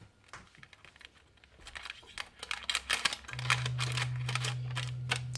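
Scissors snipping and crinkling parchment paper as it is trimmed around a round cake pan, a quick run of snips and paper rustle starting about two seconds in. A low steady hum comes on a little past the middle.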